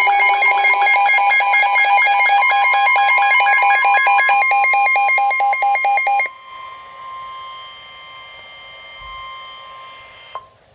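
Emergency alert signal for a severe thunderstorm warning: a loud electronic alarm of rapidly pulsing tones for about six seconds, then a steady tone near 1 kHz carrying on more quietly until it cuts off with a click shortly before the end.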